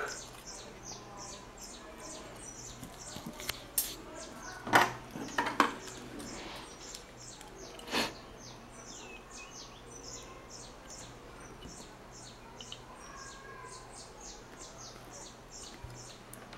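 A small bird chirping repeatedly in the background, short high chirps about three a second. A handful of sharp clicks and taps from handling the circuit board and soldering tools on the table stand out in the first half.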